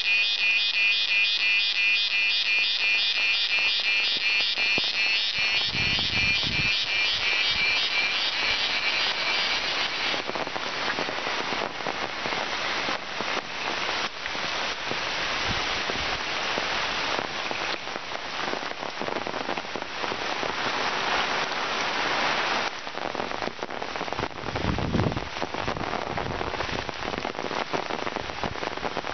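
Rain falling steadily on forest leaves, an even hiss. For about the first ten seconds a high, rapidly pulsing buzz sits over the rain, then stops.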